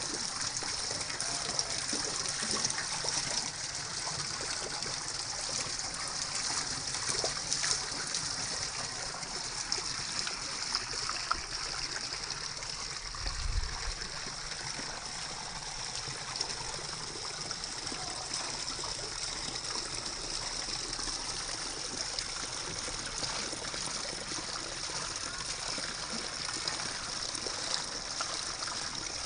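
Steady rush of running water, like a stream or a small weir, with a high hiss and no change in character. There is a brief low thump about halfway through.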